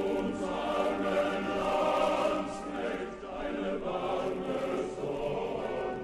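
Background choral music: a choir singing long held chords.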